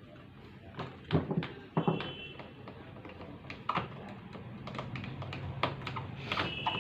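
Irregular small clicks and knocks from hands fitting the carbon brush parts and cap into an angle grinder's housing, with a cluster of louder knocks about a second in and scattered taps after.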